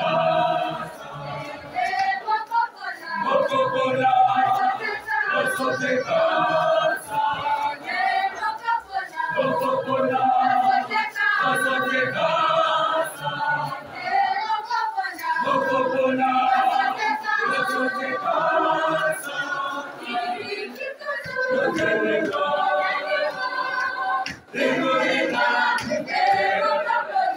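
Mixed choir of women and men singing together.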